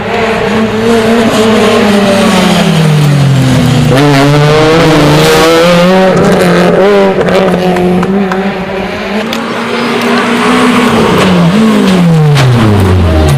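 Rally car engine at full effort on a special stage: the revs fall as it slows for a corner, climb again from about four seconds in as it accelerates away, hold high through the middle, then drop steeply near the end.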